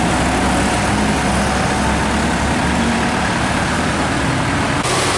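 Heavy diesel truck engines running at low speed as loaded trucks crawl around a sharp bend, a steady low engine note over road noise. The sound changes abruptly near the end.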